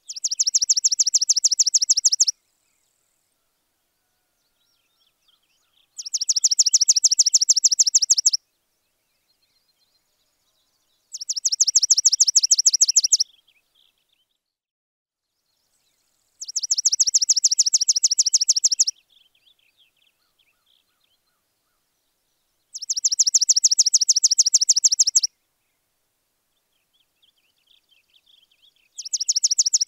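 A high, very fast trill of about two seconds, repeated six times at even intervals of roughly six seconds, each burst the same. Faint, scattered bird chirps fill the gaps between.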